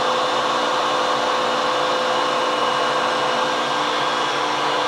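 Metal lathe running steadily, turning a camshaft while its journal is checked for runout: an even motor hum and whine with several held tones over a hiss.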